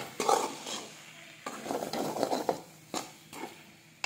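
Metal spatula stirring and scraping chunks of raw banana and potato around a metal pan as they dry-fry in spices, in several scraping passes with a few sharp clicks of metal on metal near the end.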